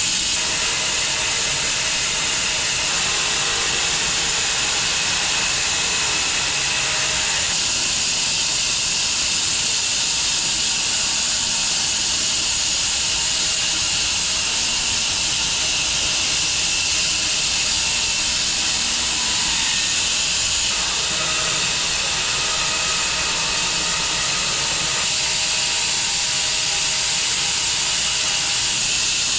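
Large bandsaw mill running and cutting through an elm log: a steady, loud hiss from the blade in the wood over the machine's running noise. The tone shifts abruptly a few times.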